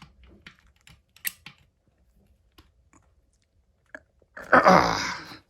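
Irregular light metallic clicks and taps of a socket wrench working on the timing-belt tensioner bolt. Near the end comes one louder rough, rasping sound lasting about a second.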